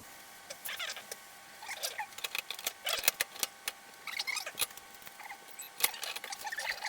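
Irregular clicks, scrapes and short squeaks from the plastic and metal parts of a Hitachi tumble dryer being handled during its repair.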